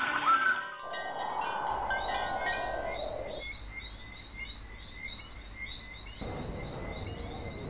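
Stock nature sound effects: a bird chirping in a quick repeated series of high notes, over a soft rushing background.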